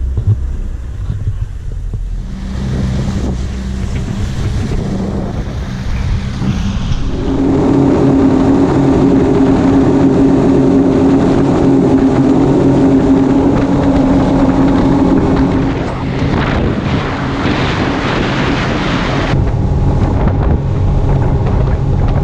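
Twin Suzuki 300 V6 four-stroke outboard motors running the boat under way: a steady engine drone over rushing water and wind on the microphone. About seven seconds in the engine note gets higher and louder, then eases back a little near sixteen seconds.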